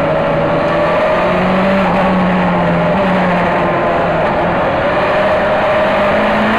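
A race car's engine running hard at high revs, heard through an onboard camera with wind and road noise. Its pitch holds fairly steady, sags a little past the middle and climbs again near the end.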